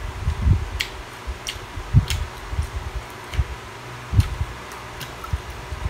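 Eating by hand: soft irregular chewing and mouth noises with five or six short sharp clicks, such as lip smacks or fingers tapping the platter, over a faint steady hum.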